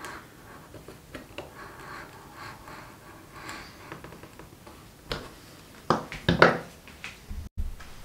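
Stanley-style utility knife blade drawn along the scored outline of a butt hinge recess in a softwood block, faint scratching strokes that deepen the cut line. A few sharper, louder clicks and knocks come in the last three seconds.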